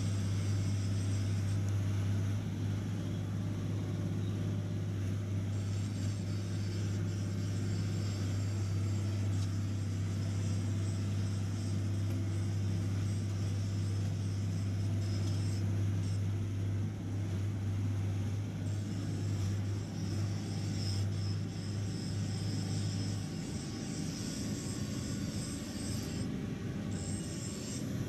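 Steady low drone of fishing trawlers' diesel engines running as the boats move slowly through the harbour basin. The deep hum weakens about three-quarters of the way through.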